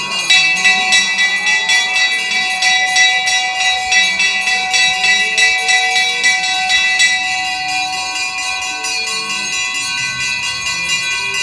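Brass temple bells rung rapidly and continuously, with several ringing tones sustained over one another. The strikes are densest for the first seven seconds or so, then thin out while the ringing carries on.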